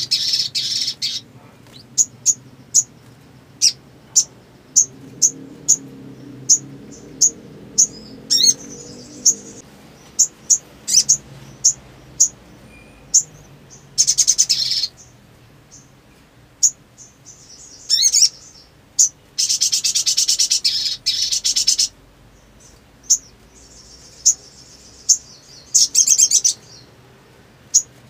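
Sunbird (sogon) calling: a string of short, sharp, high chirps broken by several rapid trilling bursts of one to two seconds. The longest burst comes about two-thirds of the way through.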